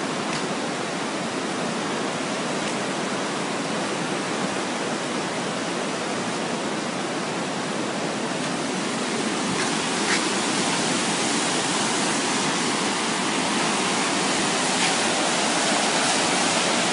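A river in flood after a storm, its floodwater rushing steadily under a bridge as an even, unbroken noise of fast water.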